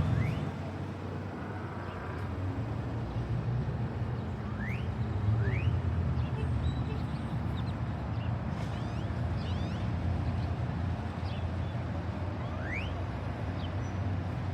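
Steady low traffic rumble with a few short, rising bird chirps scattered through it.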